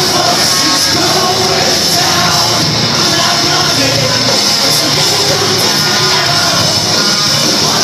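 Loud live rock music with a singer, played in a concert hall.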